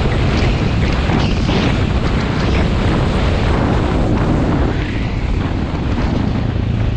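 Heavy wind buffeting the microphone of a camera moving quickly along a dirt track, a steady loud rush with no clear engine note.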